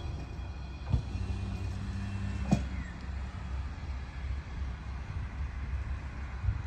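Asa Seaside Railway dual-mode vehicle, a microbus riding on rail wheels, running away along the track in rail mode with a steady low engine rumble. Two sharp clacks, about a second in and near the middle, as its wheels cross rail joints.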